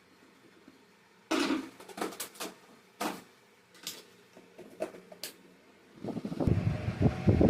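Table fan being handled, with several sharp clicks and knocks a second or so apart. Near the end a loud, fast, low fluttering rattle sets in.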